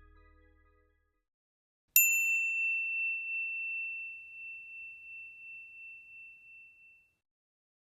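A single high bell-like ding, struck once about two seconds in and ringing out for about five seconds as it slowly fades. Soft background music fades out just before it.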